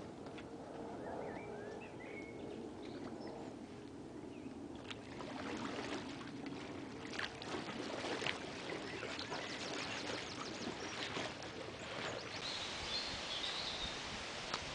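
Paddle strokes splashing and water sloshing as an inflatable canoe is paddled away from the bank, starting about five seconds in. Small birds chirp.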